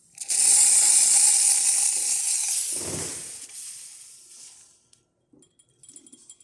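Acaso Uno espresso machine's steam wand opened, giving a loud hiss of steam that starts suddenly and fades away over about four seconds, with a low thud about three seconds in. The steamer is not yet fully heated.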